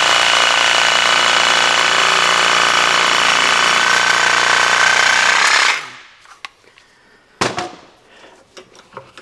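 DeWalt 20V cordless reciprocating saw cutting through the hardened rubber head of a mallet held in a vise, running at a steady speed with a high whine and stopping suddenly about six seconds in. A short knock follows a second or so later.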